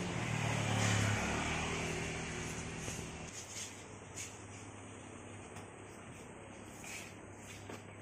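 A motor vehicle engine running. Its sound swells and rises a little about a second in, then falls away and fades about three seconds in, leaving a faint low hum and a few light clicks.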